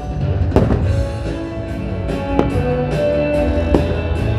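Christmas fireworks-show music playing loudly over loudspeakers, with a few sharp bangs from bursting firework shells cutting through it.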